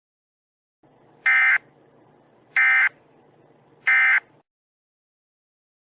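Three short bursts of Emergency Alert System SAME data tones, the buzzy digital screech of the end-of-message code, sent three times about a second apart. The alert is being closed.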